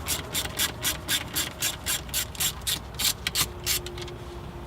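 Ratchet driver backing out a T20 Torx screw: quick back-and-forth rasping ratchet strokes, about four a second, stopping shortly before the end.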